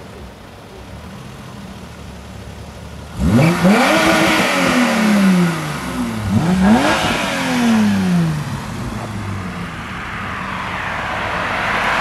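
BMW E30 engines idling, then revved hard twice, about three seconds apart: each rev climbs steeply in pitch and then dies away. Near the end a broader rush of engine and road noise builds up.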